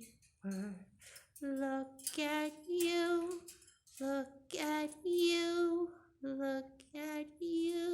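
A high voice in sing-song: about ten short phrases, several ending on a held note.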